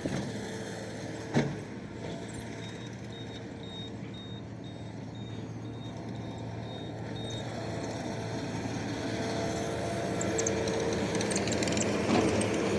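Skid steer engine running steadily, growing louder toward the end as the machine works the dirt piles. A single short, sharp sound comes about a second and a half in.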